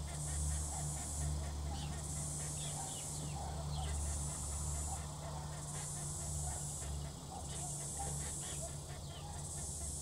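Cicada chorus swelling and fading in regular pulses about every two seconds, over a steady low hum, with a few faint short chirps.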